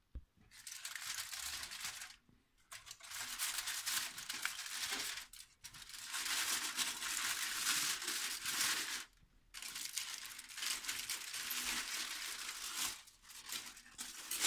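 Aluminium foil crinkling and rustling as it is peeled off a baking dish, in four long spells broken by short pauses.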